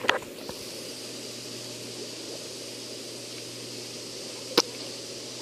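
Steady hiss of a hot tub's churning water over the low hum of its pump, with one sharp click about four and a half seconds in.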